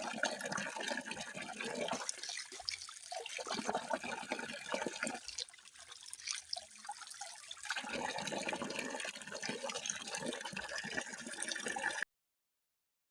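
Running, splashing water, uneven in strength, easing off for a couple of seconds in the middle, then cutting off abruptly to silence near the end.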